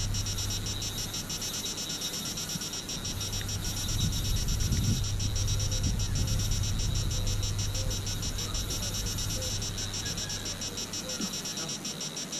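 Background music: a fast, even ticking over a held low bass note that drops out twice, with a faint melody in the middle.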